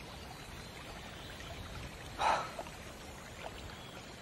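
Steady low rush of a flowing stream, with one short soft noise about two seconds in.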